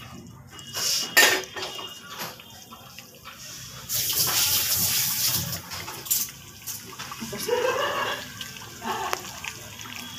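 Fish curry gravy bubbling at the boil in a metal kadhai, a spatula knocking against the pan a couple of times in the first second or so, then a steady hiss of boiling that is loudest around the middle.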